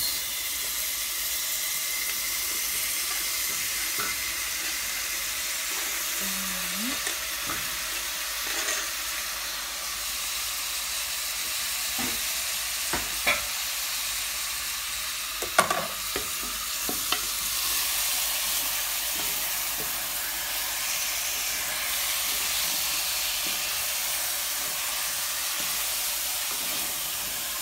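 Onions, ginger-garlic paste and chopped tomatoes frying in oil in a pressure cooker pan: a steady sizzling hiss. It is stirred with a wooden spoon, with a few short knocks against the pan.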